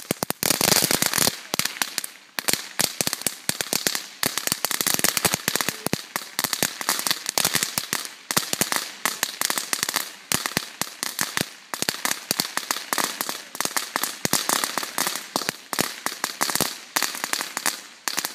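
Masterblaster Ratelslang crackling firework going off: a rapid, unbroken string of small firecracker bangs, many per second, starting suddenly and crackling on throughout.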